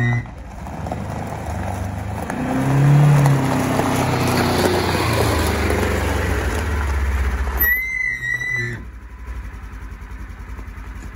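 2018 Polaris Ranger XP 1000 side-by-side's engine running as it drives across gravel. The engine speed rises about three seconds in, a brief high whine follows about eight seconds in, and then the engine drops to a steady idle for the last couple of seconds.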